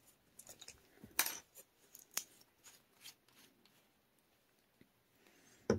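Faint clicks and taps of a small plastic acrylic craft-paint bottle being handled and its cap twisted open, with a sharper knock about a second in and another near the end.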